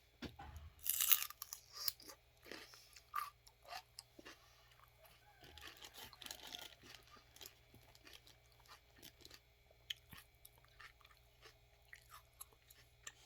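Celery being bitten and chewed close to the microphone: a loud crunching bite about a second in, then irregular crunching chews that grow fainter and sparser.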